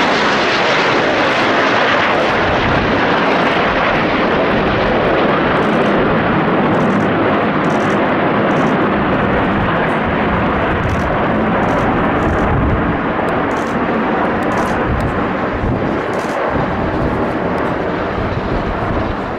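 Jet noise from a formation of CT-114 Tutor trainers, each with a single J85 turbojet, flying past: a loud, steady rushing roar that eases slightly near the end.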